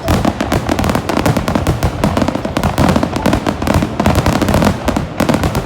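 Fireworks crackling and popping in a rapid, continuous barrage of many sharp reports a second, with music underneath.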